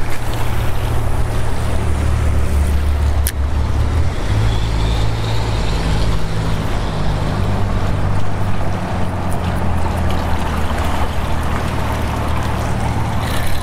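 Motorboat engine running steadily in the inlet, a low drone, over the rush of water. One sharp click about three seconds in.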